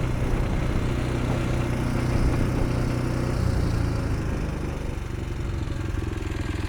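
Ariens Deluxe 30 snowblower's single-cylinder engine running steadily, its pitch shifting slightly about halfway through.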